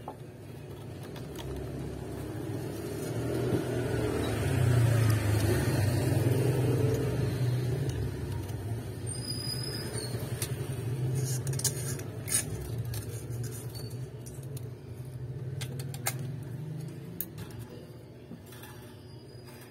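A motor vehicle's engine swells up and slowly fades away as it passes by. A few light clicks and clinks come through as the guitar neck and its hardware are handled.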